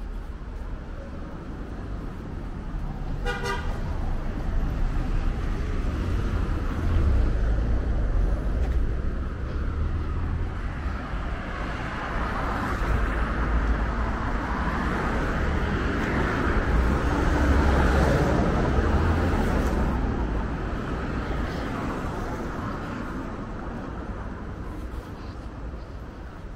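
Street traffic: cars driving past on the road, the sound swelling twice as vehicles go by, with a brief car horn toot about three seconds in.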